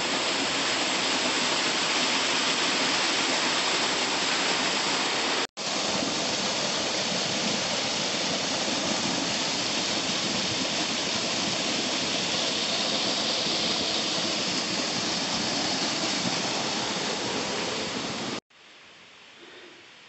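A waterfall gives a loud, steady rush of falling water. There is a split-second break about five and a half seconds in. The rush cuts off abruptly near the end, leaving only a faint background hiss.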